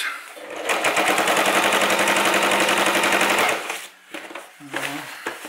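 Household electric sewing machine stitching through heavy canvas: a rapid, even rattle of needle strokes over the motor's hum. It starts about half a second in, runs for about three seconds and then stops.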